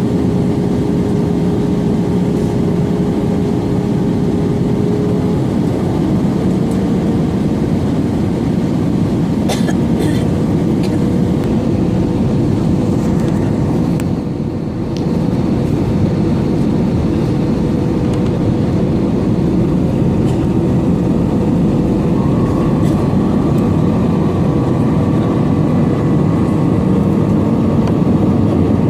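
Airbus A320 cabin noise in flight: a steady rush of engine and airflow with a whining engine hum that steps up slightly in pitch twice. A couple of faint clicks about ten seconds in.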